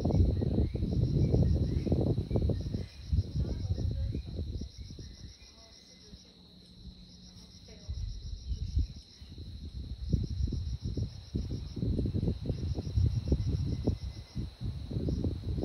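Insects chirping in repeated pulses over a steady high-pitched whine, under a loud, uneven low rumble on the microphone that fades out for a few seconds in the middle.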